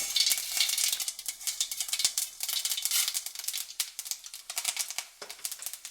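Mustard seeds dropped into hot oil for tempering, spluttering and popping in a dense crackle that starts suddenly and thins out toward the end.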